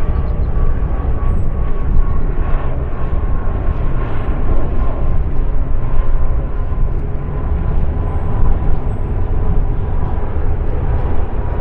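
Jet aircraft engines running loudly: a deep rumble with a steady whine that drifts slightly lower.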